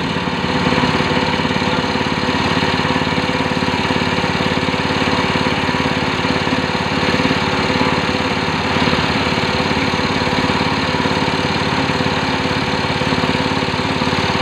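Small petrol engine of a motorcycle-wash pressure washer set running steadily at idle.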